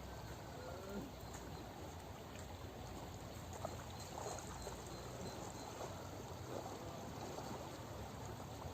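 Faint, steady rush of river water.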